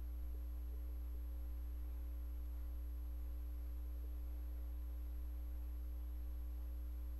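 Steady low electrical hum, with fainter steady tones above it and no other sound.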